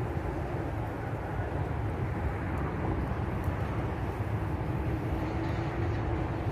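Steady low outdoor rumble with no distinct events, and a faint hum that comes in about midway.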